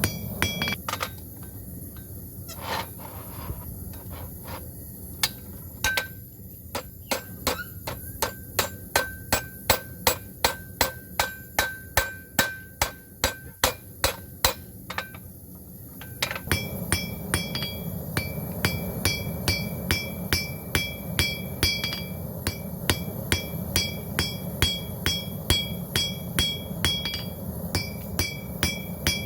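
Hand hammer forging hot steel on an anvil: a steady run of blows about two a second, each with a metallic ring. About halfway through, a steady low hum starts under the blows, and they go on with a higher ring.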